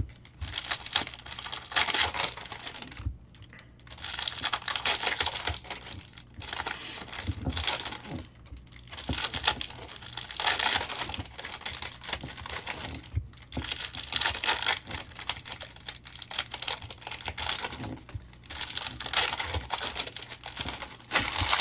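Trading card box and pack wrappers being crinkled and torn open by hand: irregular rustling and crackling that swells and eases over and over.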